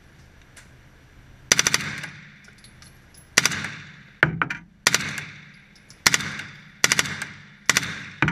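Suppressed HK MP5-SD submachine gun firing about seven short rapid bursts of a few rounds each, each burst ringing off briefly in the range's reverberation.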